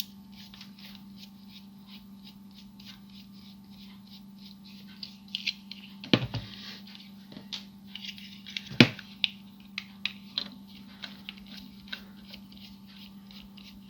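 Small screwdriver undoing screws in the back of a plastic Transformers figure: a run of faint clicks and ticks of metal on plastic, with two louder knocks about six and nine seconds in, over a steady low hum.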